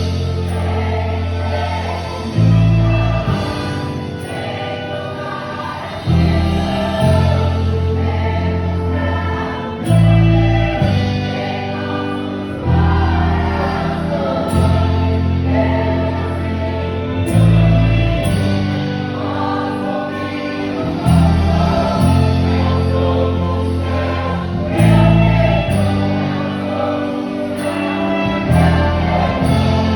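Choir singing gospel music with instrumental accompaniment, over sustained bass notes that change every second or two.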